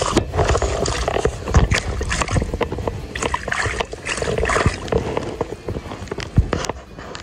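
Water splashing and sloshing with irregular knocks and rustles as a landing net holding a landed nigoi is handled in the shallows.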